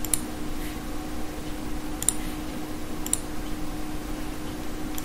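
A few separate clicks from a computer keyboard and mouse as an entry is typed and a button is pressed, spread unevenly over a few seconds. A steady low hum runs underneath.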